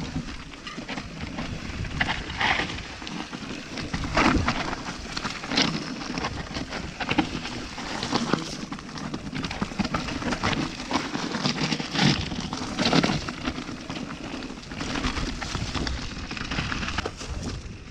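Mountain bike riding fast down a rocky singletrack: tyres crackling over stones and gravel, with irregular knocks and rattles from the bike over bumps, under a steady low rumble.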